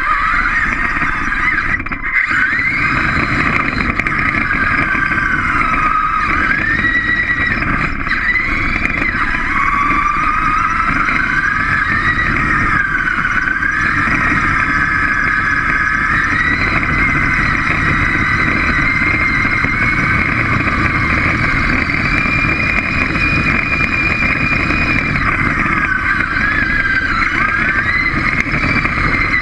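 Small robot's electric drive motors and gears whining as it drives, the pitch rising and falling with its speed, over a rough rumble of wheels and vibration from the floor.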